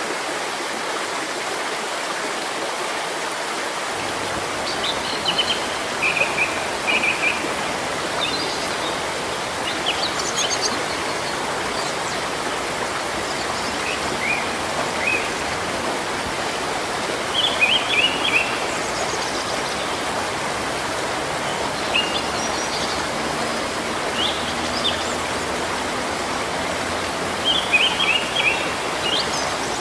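Steady rain falling on leaves and foliage, an even hiss of water. From about five seconds in, a bird calls in short groups of high chirps every few seconds.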